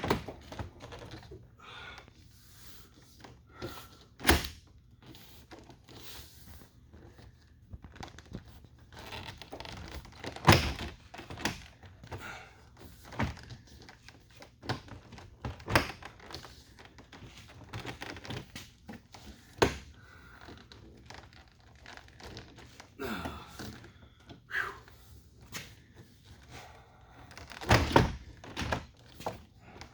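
Scattered thunks and knocks on a pickup truck door, with quieter handling rustles between, as the rubber door seal is pushed and worked onto the door's lip. The loudest knocks come about ten seconds in and near the end.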